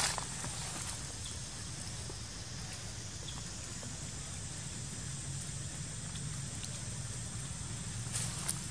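Steady outdoor background: a constant low rumble under a faint even hiss, with a few soft taps or rustles near the start and again near the end.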